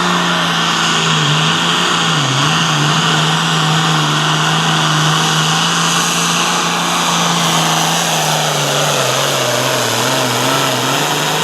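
Hot farm pulling tractor's diesel engine running hard under load. Its pitch holds steady with a couple of brief dips, then sags and wavers over the last few seconds as the engine lugs down.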